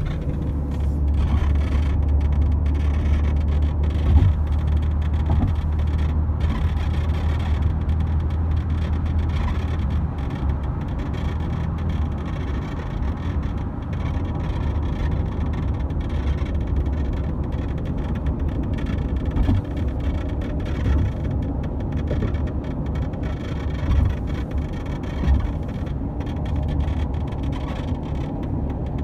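Steady low rumble from a late-model Toyota Vellfire Executive Lounge, with a few short knocks now and then: the unexplained abnormal noise that appeared the day after delivery and that the dealer could not trace.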